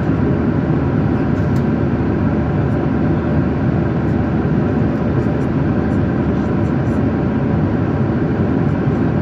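Steady jet airliner noise heard inside the passenger cabin: an even, low engine and air hum with no change in level.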